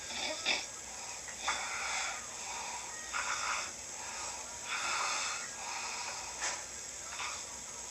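A sleeping person snoring: a run of breathy, hissing breaths, one every second or two, some longer and some short.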